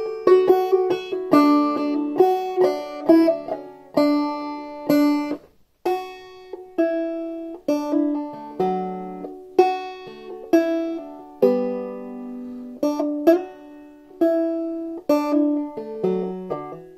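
Five-string banjo played clawhammer style in open D tuning: a tune of plucked, ringing notes, with a brief break about five and a half seconds in.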